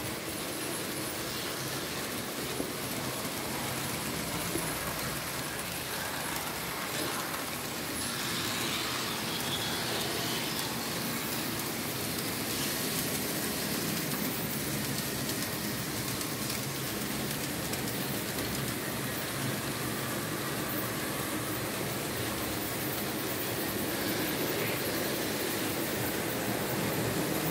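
Märklin H0 model train running on metal track: a V 216 diesel locomotive and passenger coaches giving a steady rolling rattle of small wheels on the rails.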